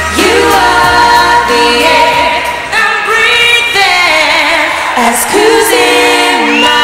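Three female pop singers singing a sustained phrase in close harmony into handheld microphones. The backing music's bass fades out within the first few seconds, leaving the voices nearly unaccompanied.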